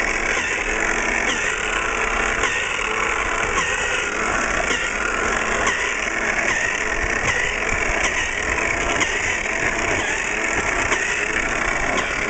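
Snow Joe Model 322 electric snow thrower running steadily, its motor and auger churning through snow as it is pushed back and forth.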